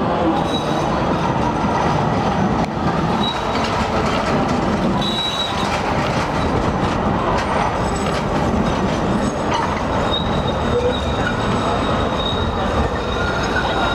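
Articulated electric tram passing close by on street rails: a steady rumble of wheels on track, with a few clacks over the rail joints in the middle and a thin, high wheel squeal that comes and goes, strongest near the end.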